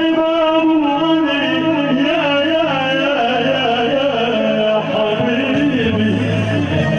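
Middle Eastern wedding music: an ornamented, wavering melody over held bass notes.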